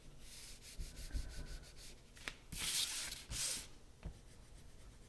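Caran d'Ache Neocolor water-soluble wax crayon scribbling and rubbing on paper: faint scratchy strokes, with two louder strokes near the middle and a couple of light taps.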